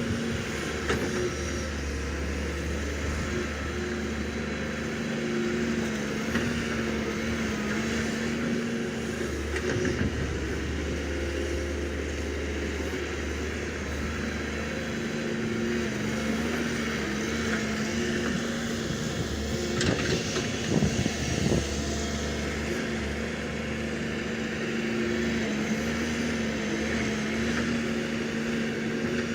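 Heavy diesel engine of an excavator running steadily, its pitch dipping and rising as load changes. A few sharp clatters about twenty seconds in.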